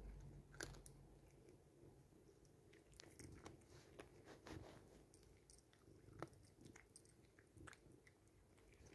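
A cat crunching and chewing dry cat treats: faint, irregular crisp crunches.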